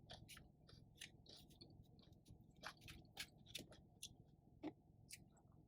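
A person chewing food: faint, irregular mouth clicks scattered throughout.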